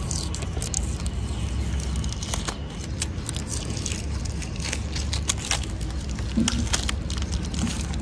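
Thin clear protective plastic film being peeled and crinkled off a tractor's painted bonnet, giving a run of irregular small crackles and tearing sounds, over a steady low rumble.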